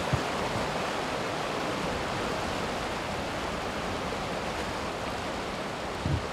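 River water rushing steadily over a rocky boulder run. Two brief low thumps, one just after the start and one near the end.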